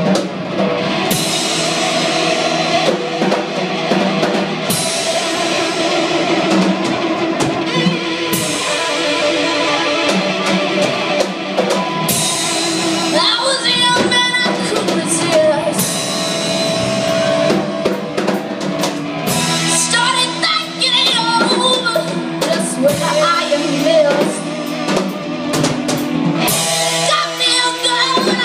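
Live rock band playing: electric guitars and drum kit, with a female lead singer. Cymbal crashes come every three to four seconds.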